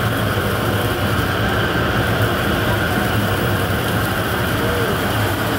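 Rotating mesh-drum chile roaster running, its burners firing beneath the turning drum: a steady, even rushing roar throughout.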